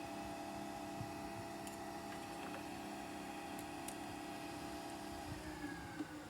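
Nespresso Vertuo Next coffee machine running with a steady motor hum; about five seconds in the pitch starts falling as the motor winds down.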